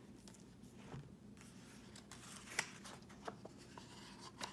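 Faint handling sounds of a hardcover picture book being opened: a soft rustle of paper with a few light taps and clicks.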